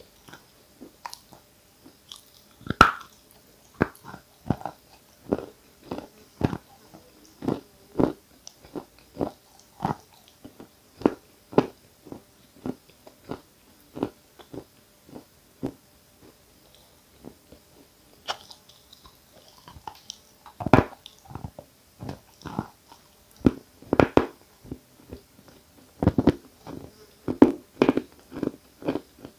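Close-miked biting and chewing of edible chalk of the 'Giant' (Исполин) variety: a run of short, sharp crunches, roughly one a second, the strongest about three seconds in and in the last several seconds.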